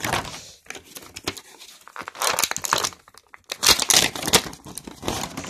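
Plastic toy packaging crinkling and tearing as it is worked open by hand to free an action figure, in irregular crackly spells, loudest about two and four seconds in.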